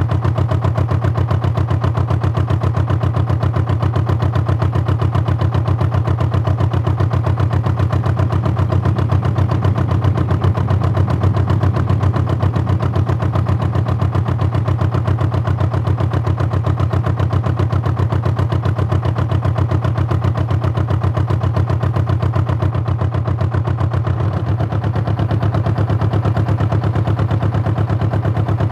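A canal narrowboat's diesel engine heard on board, running steadily with a fast, even pulse. About 24 seconds in, the engine note changes slightly as the boat's speed changes.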